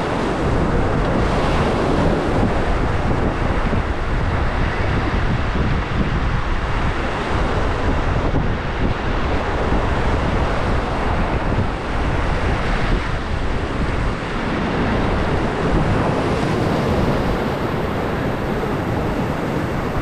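Steady rush of river water around a raft, with wind buffeting the microphone.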